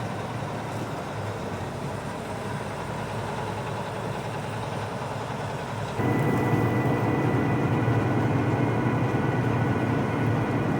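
Heavy farm machine's engine running steadily, with no changes in pitch. About halfway through, an abrupt cut brings a louder, deeper run of the engine noise with a faint steady whine.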